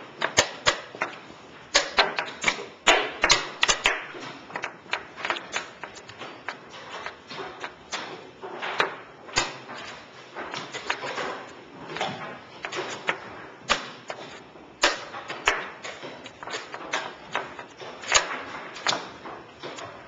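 Chess pieces being picked up and set down on a board: a run of irregular sharp clicks and knocks, some in quick clusters.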